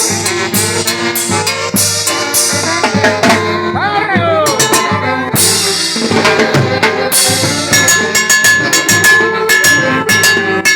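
A live brass band playing dance music: a drum kit keeps a steady beat under brass horns, with a swooping, falling note about four seconds in.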